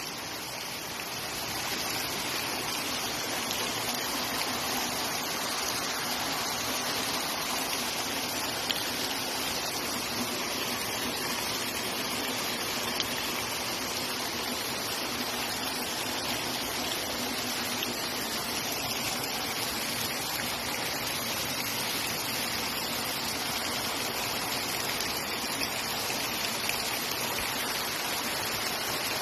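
Spring water gushing out from between rocks in a steady rush, a spring set flowing by heavy continuous rain.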